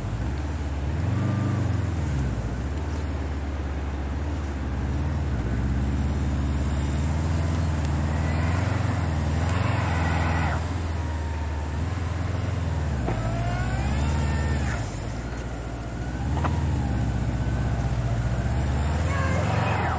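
Motor vehicle engine running, its pitch rising and falling.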